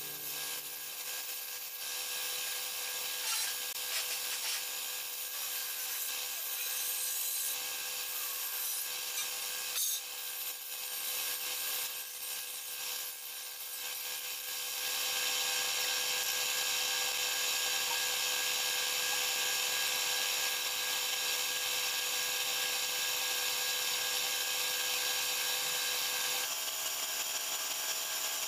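Gravity-feed paint spray gun hissing steadily as compressed air atomises the paint, growing louder about halfway through.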